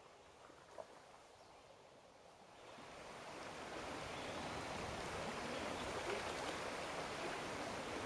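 Creek water running, faint at first, then swelling about three seconds in to a steady rush.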